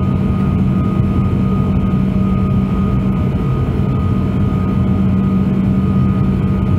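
Steady drone of an Airbus A340-600's Rolls-Royce Trent 556 turbofans in flight, heard inside the cabin. A deep hum is mixed with airflow noise, and a couple of faint steady whines sit above it.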